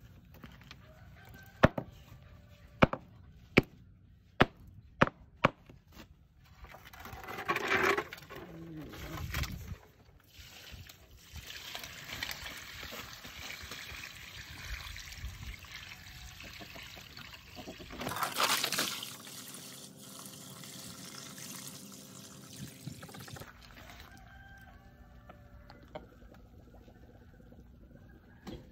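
A run of sharp knocks, then water poured from a bucket into a rat's burrow under a cement slab, splashing and running in. Chickens cluck near the end.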